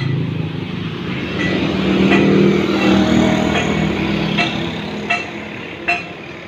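A motor vehicle engine running, swelling to its loudest about two to three seconds in and then fading, as if passing on the road. Short, sharp chirps repeat about every three quarters of a second over it.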